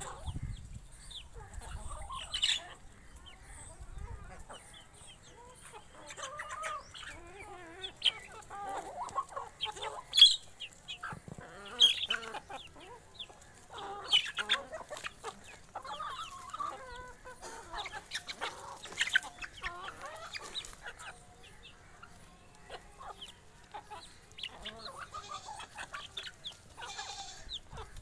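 A flock of mixed Aseel and Misri hens clucking while pecking at scattered feed, with short calls and sharp ticks coming in loose clusters.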